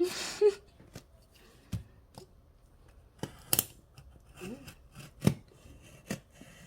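Scissors cutting into a cardboard box: a short rasp at the start, then several separate sharp snips at irregular intervals.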